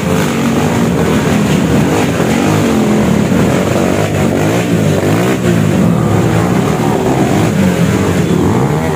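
Several enduro dirt-bike engines running at once, revving up and down in overlapping, wavering pitches as the bikes are worked over rocks through a shallow stream.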